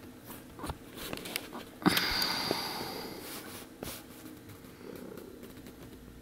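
Week-old kittens crawling over each other on a bed sheet: soft rustling and scratching of fabric with scattered light clicks, and a sudden louder rustle about two seconds in that fades over a second or so.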